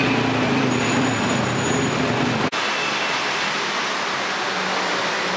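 Steady street traffic noise with a low engine hum from idling cars. About halfway through it cuts abruptly to an even, steady hiss with less low rumble.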